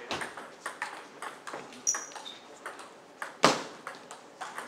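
Table tennis rally: the ball clicks against the paddles and bounces on the table in an irregular run of sharp ticks. One much louder crack about three and a half seconds in, and a brief high squeak about two seconds in.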